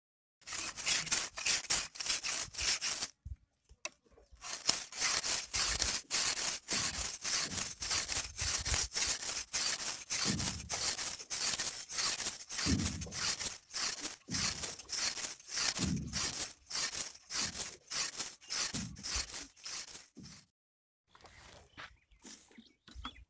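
A knife blade being sharpened by stroking it back and forth against a wooden block: a rasping scrape about two strokes a second. The strokes pause briefly about three seconds in, then go on steadily until they stop near the end.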